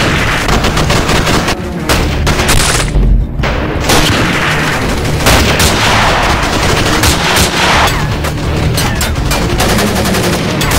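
Heavy gunfire: overlapping automatic-rifle bursts and single shots, with a deep boom about three seconds in and fast automatic fire toward the end.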